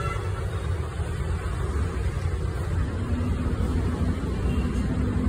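Street traffic rumble, with a steady engine hum setting in about three seconds in.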